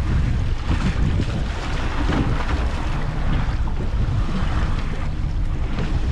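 Wind buffeting the microphone on a boat at sea, with the rumble of the boat and waves washing.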